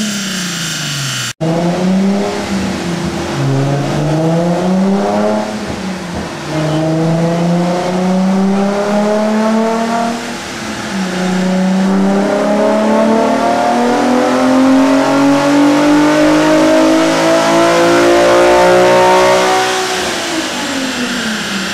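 Nissan 350Z's 3.5-litre VQ35HR V6, breathing through a Megan catback exhaust and Fujita dual intakes, running on a chassis dyno. The revs fall at first, cut out briefly about a second in, then rise and drop several times as it goes up through the gears. It then makes one long pull with slowly rising pitch and lets off near the end, the revs falling.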